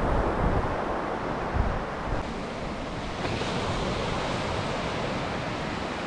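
Small waves breaking and washing up on a sandy beach, with wind rumbling on the microphone.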